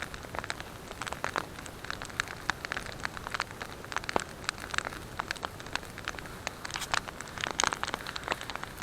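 Wood campfire crackling: irregular sharp pops and snaps over a soft steady hiss.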